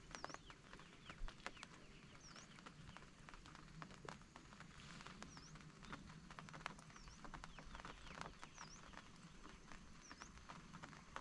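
Faint outdoor background with a bird's short high chirp repeating every second or two, and scattered faint clicks.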